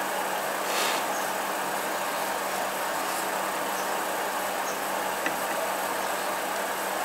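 Steady background hiss with a constant low hum, a brief swell of hiss about a second in, and a single faint click about five seconds in.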